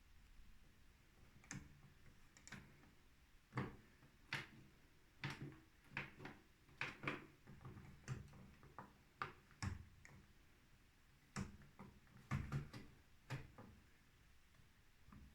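Washing machine giving irregular light clicks and knocks, one or two a second, with a quiet stretch around the middle and another near the end, over a faint low hum.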